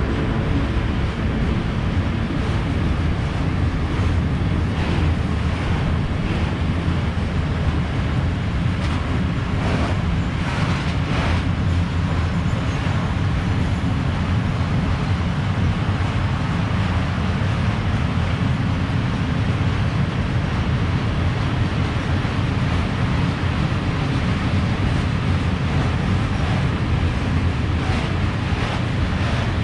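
Freight train of open coal wagons rolling past at speed. A steady low rumble of wheels on rail, with occasional sharp clacks of the wheels, a cluster about ten seconds in and again near the end.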